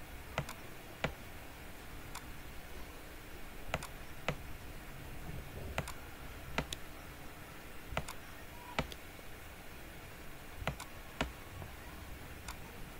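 About a dozen sharp computer mouse clicks, scattered and often in pairs about half a second apart, over a faint steady hiss.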